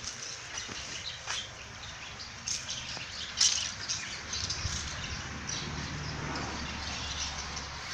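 Outdoor ambience with birds chirping and a few sharp clicks or crunches, the loudest about three and a half seconds in.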